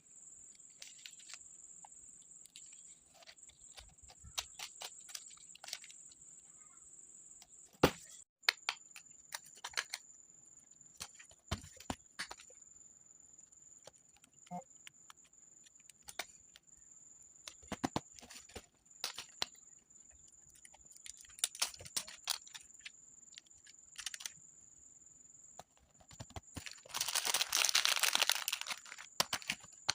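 Close-miked journaling sounds: scattered taps and clicks of paper and stationery being handled, with a louder rustling stretch of a couple of seconds near the end. A faint steady high-pitched whine sits underneath throughout.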